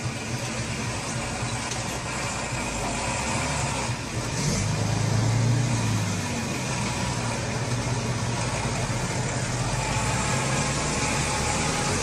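Engine of a heavily loaded logging truck running as it crawls through mud, with a steady low hum. It swells louder for a second or two about four and a half seconds in.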